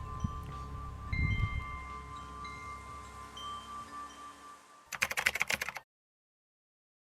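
Cowbells ringing at several pitches, each note ringing on, over a low wind rumble. About five seconds in comes a short burst of rapid clicking, then the sound cuts off suddenly.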